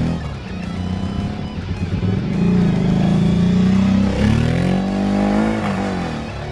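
Kawasaki KLV1000's 90-degree V-twin running through Mivv Oval carbon slip-on exhausts. It holds a steady raised rev for a few seconds, then is blipped about four seconds in, the pitch rising and falling back.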